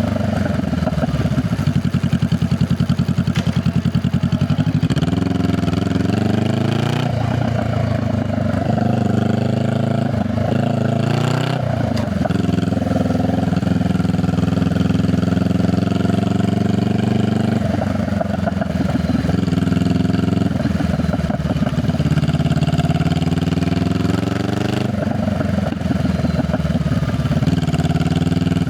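Honda Rebel 500's parallel-twin engine heard through its exhaust while riding: the engine note climbs and drops repeatedly as the bike accelerates, shifts gear and slows.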